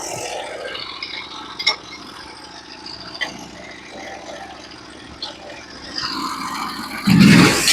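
Engine of a Norwood HD36v2 portable bandsaw mill running steadily, with a few sharp clicks. It grows much louder near the end.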